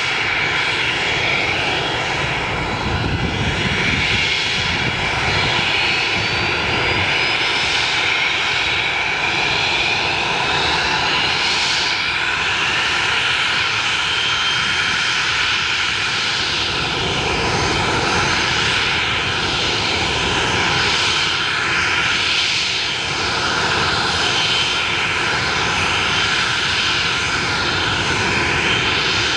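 Boeing 727's jet engines running loud and steady, a dense roar with high whines, one of which rises in pitch over the first dozen seconds.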